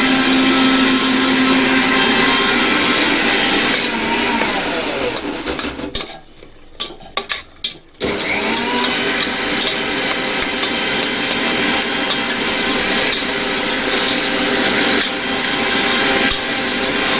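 Electric kitchen mixer grinder running at full speed. It is switched off and winds down about four seconds in, then a few clicks in a short lull, then it is switched back on and spins up again.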